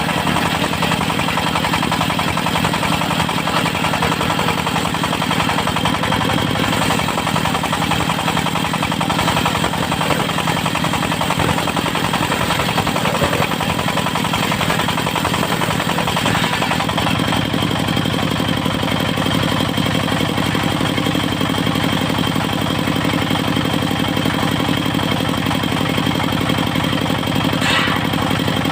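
Engine of a mobile circular-saw rig running steadily, its pulsing note changing and getting fuller about halfway through, with a brief click near the end.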